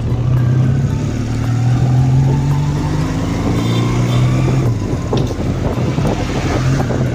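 1981 Honda CD200 Roadmaster's air-cooled parallel-twin engine running under way, with road and wind noise. About five seconds in the steady engine note drops away for about two seconds, then picks up again near the end.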